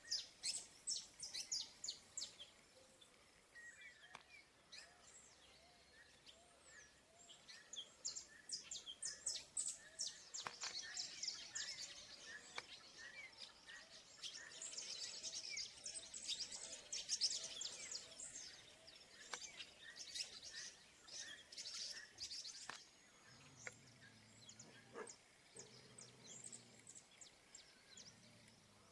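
Wild songbirds chirping and singing in rapid runs of short, high-pitched notes, busiest through the middle and thinning to scattered calls near the end.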